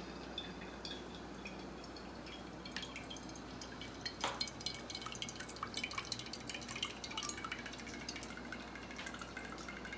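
Cooking oil pouring from a plastic bottle in a thin stream into a non-stick kadai, with dripping and small ticks that come thickest from about four to eight seconds in.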